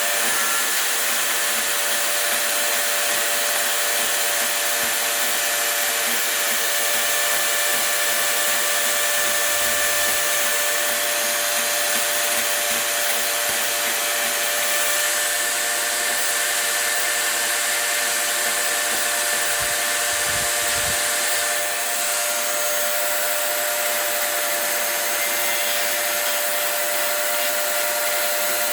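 Electric rotary tool with a carbide bit running steadily at high speed, a continuous whine, grinding wood off a sapling stick.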